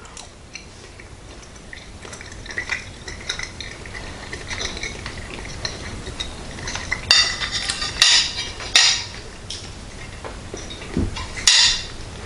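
Quiet eating sounds: a few scattered clinks and scrapes of a metal fork against a plate, with a soft knock near the end.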